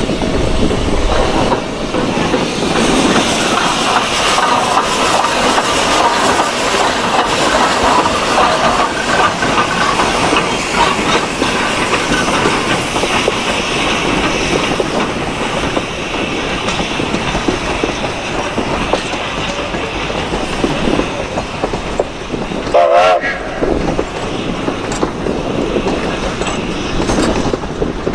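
Durango & Silverton narrow-gauge steam train rolling past: a steady rumble and clatter of the cars on the rails. Late on, a short wavering tone stands out briefly over the clatter.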